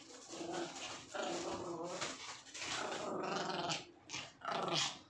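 Two small dogs growling and snarling in rough play-fighting, in several bursts, loudest near the end.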